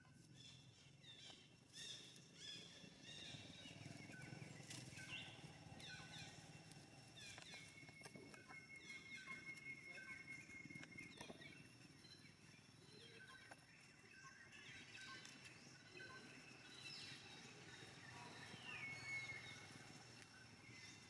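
Faint outdoor ambience full of short, high chirping calls scattered throughout, with a held whistling note about eight seconds in and a falling call near the end.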